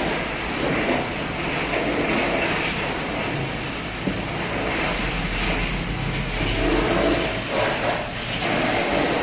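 Steady rumble of a running 2012 Ford Fusion, with a broad noise that holds at one level throughout.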